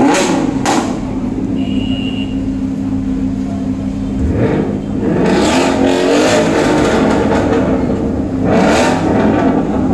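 Sports car exhaust idling with a steady low note, revved several times: two quick blips at the start, a longer rev from about four to seven seconds in, and another rev near the end.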